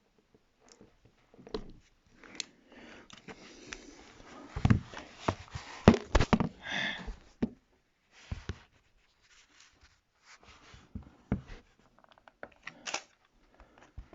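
Irregular clicks, taps and short scraping noises from small plastic and metal tablet parts being handled and pried apart, busiest and loudest around the middle.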